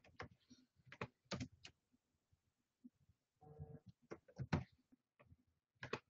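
Irregular keystrokes on a computer keyboard: scattered clicks in uneven bursts, with a short low tone about three and a half seconds in.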